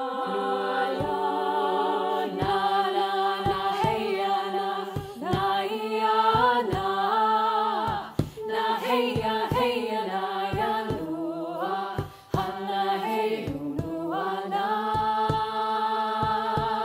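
Six women's voices singing a cappella in close harmony over a held low note, the upper voices sustaining and gliding between notes. Short low knocks recur through it.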